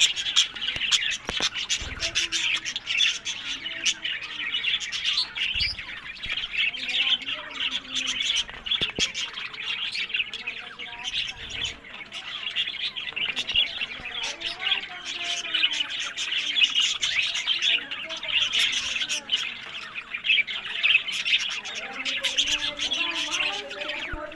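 Budgerigars chirping and chattering without a break: a dense stream of short, high chirps, with lower wavering warbles coming and going.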